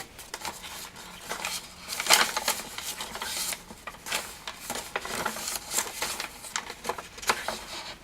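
Pages of a handmade junk journal being turned and handled: irregular paper rustling and flapping with scattered light taps and clicks.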